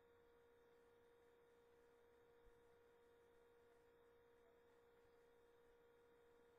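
Near silence, with only a faint steady hum at one pitch.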